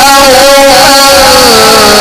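A man's voice in melodic Quran recitation, holding one long ornamented note. The pitch wavers and then slides down about a second and a half in.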